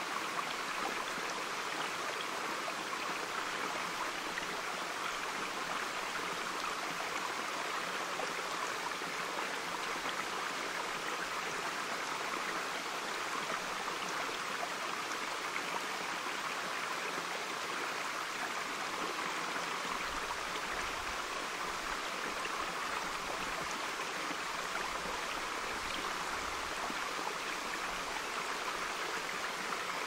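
Shallow stream of water running over pebbles and rocks: a steady, even babble of flowing water.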